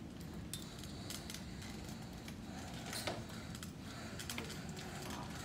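A front-wheeled walker and slow steps on a hard corridor floor: irregular light clicks and taps over a low steady hum.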